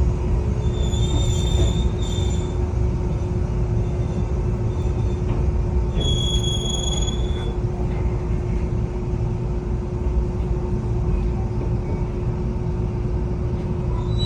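Enoshima Electric Railway (Enoden) train running on the rails: a steady low rumble with a steady hum. The wheels squeal high twice, about a second in and again about six seconds in.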